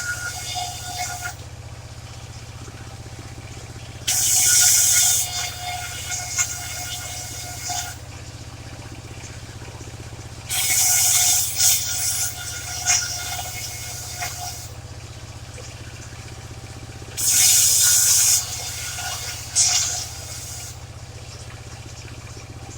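Engine-driven portable circular sawmill running steadily, its blade cutting waru (sea hibiscus) wood in three loud bursts about every six and a half seconds, each followed by a quieter ringing whine of the blade.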